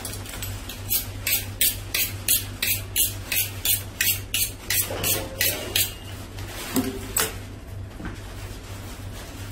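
A knife being honed on a butcher's steel: a quick, even run of about fifteen metal-on-metal strokes, roughly three a second, then a couple of lighter knocks about seven seconds in.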